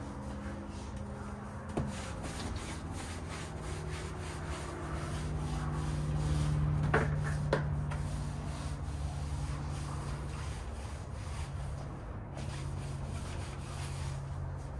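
Soft-bristle brush on a long pole scrubbing painted lap siding and a door frame in repeated rubbing strokes, agitating fly residue loosened by the soft-wash chemical. A sharp knock comes about two seconds in and two more about seven seconds in, over a steady low hum.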